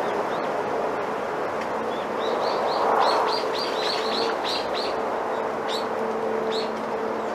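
Bamboo leaves rustling in the wind as a steady rushing noise. From about two seconds in, a small bird chirps a quick run of short high notes, about five a second, then gives two single chirps near the end. A faint low hum runs underneath.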